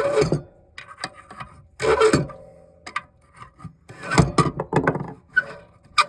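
The spring-loaded thermal regulator cap on a Pentair MasterTemp 400 heater manifold is being unscrewed by hand. Its threads make several short, irregular scraping rasps as it turns.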